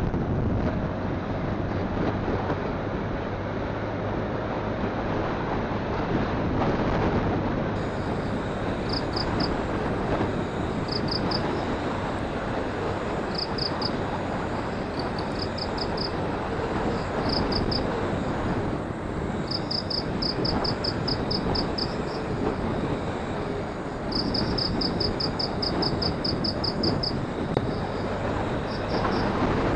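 Wind rushing over a phone microphone with a motorcycle's engine and road noise while riding. From about eight seconds in, short runs of rapid high chirps come and go.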